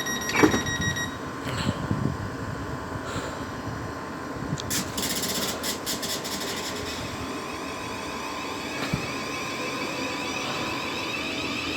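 Electric train at a station platform: a steady high electronic tone stops about a second in, then the train's running noise hums on and builds near the end.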